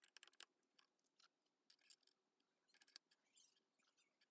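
Faint, scattered clicks and taps of steel parts being handled as a short galvanized pipe and a steel sleeve are fitted in a bench vise, with a sharper tap about three seconds in.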